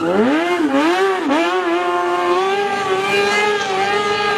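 Sport motorcycle engine revving hard, its pitch swinging up and down with the throttle through the first two seconds, then held steady at high revs.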